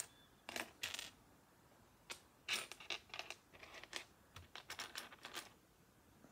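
Plastic Lego bricks clicking and clattering against each other as loose pieces are handled and sorted, in quick irregular clusters of sharp ticks.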